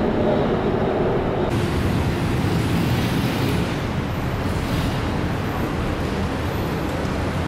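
Steady noise of road traffic, becoming hissier about one and a half seconds in.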